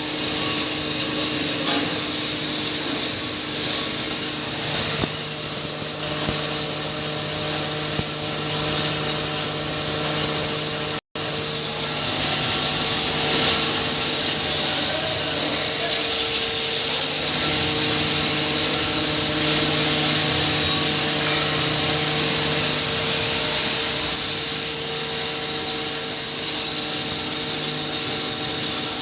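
Double-chamber pulverizer (hammer mill) for grinding maize running steadily, a loud even hiss over a constant hum. The sound breaks off for an instant about eleven seconds in.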